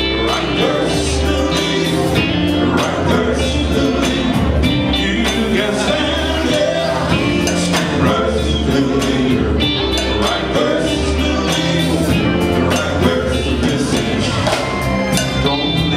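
Live gospel group with a backing band of electric guitars, keyboard and drum kit playing an upbeat number with a steady beat, male voices singing over it.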